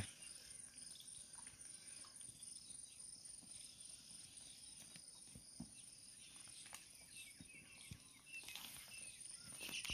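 Near silence: faint, steady high insect chirring, with a few soft scattered knocks.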